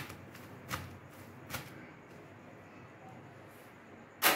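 Hands slapping and crushing a freshly cooked lachha paratha to loosen its layers: a few short, soft slaps less than a second apart, then a louder slap near the end.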